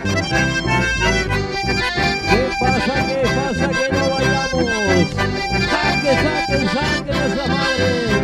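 Live chamamé band playing an instrumental passage: accordions carry the melody over strummed acoustic guitar and electric bass, with a steady beat.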